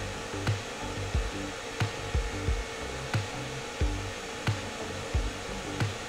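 Handheld hair dryer blowing steadily, hot air aimed at a PlayStation 3 Fat motherboard to reflow the solder under its chips as a home fix for the blinking red light fault. A steady beat of background music runs underneath, with a low thump about every two-thirds of a second.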